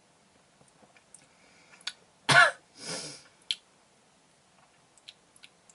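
A man clears his throat once after a sip of a drink, a short loud sound that drops in pitch, followed by a breathy exhale and a few small mouth clicks.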